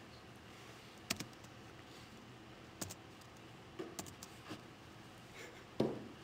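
A few separate computer keyboard keystrokes and clicks, spaced about a second apart, with a louder knock near the end.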